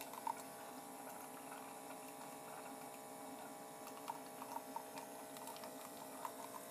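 Keurig coffee brewer running mid-brew: a steady, faint hum with a few small ticks.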